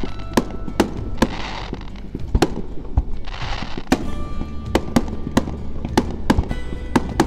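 Fireworks display going off: more than a dozen sharp bangs of aerial shells at irregular intervals, with short bursts of hissing crackle, over background music.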